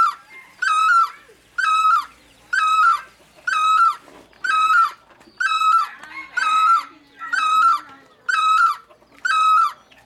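Great barbet calling: a loud, clear note repeated steadily a little faster than once a second, about eleven times, each note dipping in pitch at its end.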